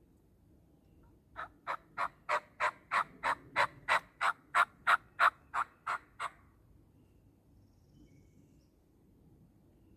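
A long, evenly paced series of about sixteen turkey yelps, roughly three a second, starting about a second and a half in and ending just past halfway, a run of calling meant to get a gobbler to answer.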